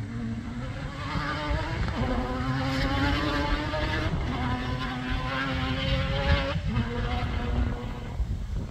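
Rally car engine revving hard as the car is driven flat out across a loose dirt field, pitch climbing, then breaking off and picking up again at gear changes about two and four seconds in, before it drops away near seven seconds.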